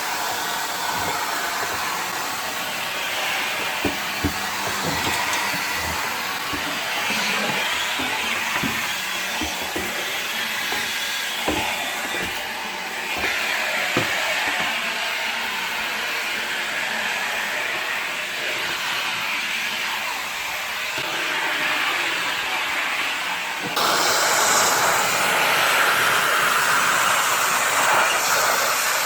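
Central vacuum running through a long hose and wand: a steady rush of suction air, with a few knocks of the tool against surfaces. The rush gets louder about three-quarters of the way through.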